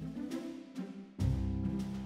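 Background music: held low notes under a regular percussive beat, with a heavier hit a little past halfway.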